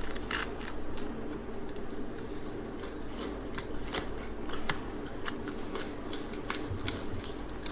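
Plastic blister wrapping being cut and worked open by hand, a string of irregular sharp clicks and snips.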